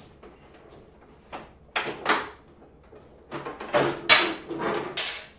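Plastic track fairings of a 2007 Suzuki GSX-R1000 being unclipped and handled: a run of short, sharp plastic clacks and clatters, about eight in all, loudest about four seconds in.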